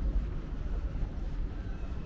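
Outdoor ambience dominated by a steady low rumble, with a few faint high tones near the end.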